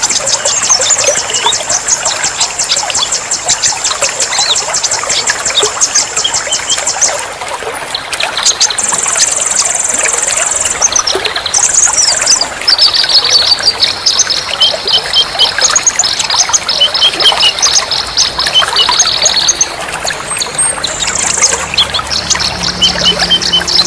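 Songbirds singing long, rapid, high-pitched trills one after another over a steady trickle of running water. This is a bird-therapy track used to coax caged birds that have stopped singing back into song.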